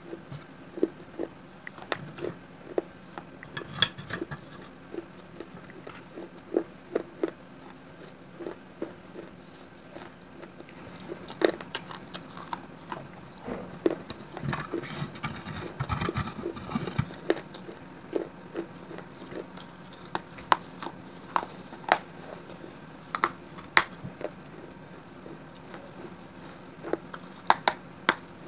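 Pieces of a fired terracotta pot being bitten and chewed along with red clay paste: irregular sharp crunches and clicks, with a denser run of crunching about halfway through.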